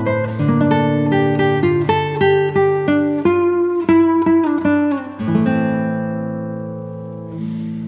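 Background music: plucked acoustic guitar playing a run of quick notes, then a held chord ringing down from about five seconds in.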